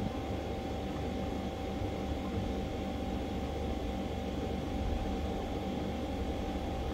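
Steady machine hum over a low rumble, with a faint constant whine and no change throughout.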